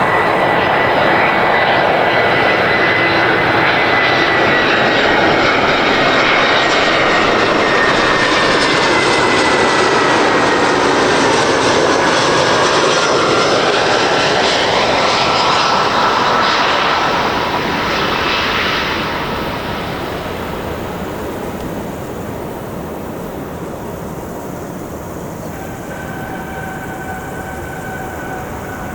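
Jet airliner engines passing close: a loud rush with a whine that slowly falls in pitch, fading away about eighteen seconds in. A fainter engine whine starts near the end.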